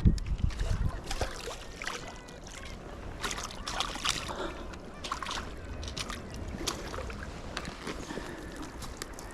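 Handling noise aboard a small fishing boat: a heavy low thump at the start, then a run of short clicks, knocks and scrapes over water sloshing against the hull.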